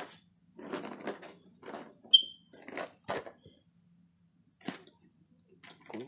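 A single short, high-pitched electronic chirp about two seconds in, the loudest sound, among soft scattered rustles and clicks.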